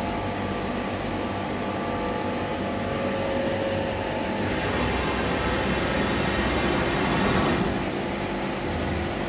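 Steady running hum and hiss of a 1993 Mazak Super Turbo X 510 Hi-Pro laser cutting machine, with faint steady tones under an even noise; the sound changes slightly about four and a half seconds in.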